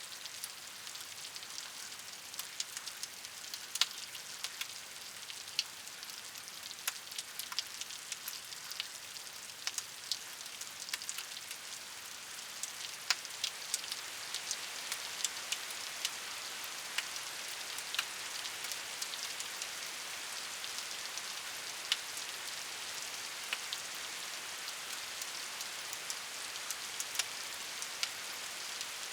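Steady rain falling on a surface: a constant hiss with many distinct drops ticking and pattering close by, scattered irregularly throughout.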